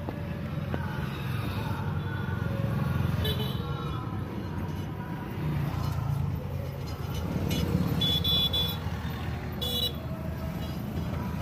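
Road traffic with a steady low rumble of vehicles, and short car horn toots about three seconds in and again around eight and ten seconds.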